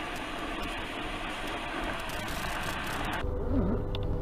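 Steady road and engine noise heard from inside a vehicle driving along a highway. It cuts off abruptly about three seconds in and gives way to a low engine hum, with a short tone that dips and rises in pitch.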